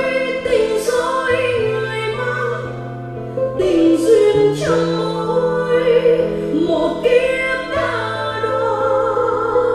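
A woman singing a slow Vietnamese ballad with wavering held notes over sustained accompaniment and a bass line. It is played back through a 5.1 home-theatre speaker system and recorded by a microphone in the room.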